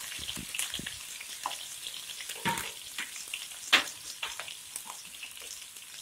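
Chopped garlic, onion and green chillies frying in hot oil in a nonstick pan: a steady sizzle with frequent small crackles and pops, a few of them sharper.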